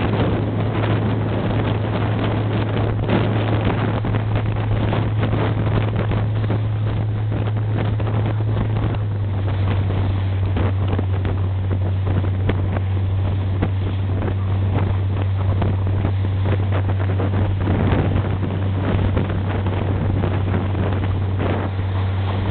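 Fishing boat's engine running steadily under way, a constant low hum that drops slightly in pitch about nine seconds in, with the wake rushing behind and wind buffeting the microphone.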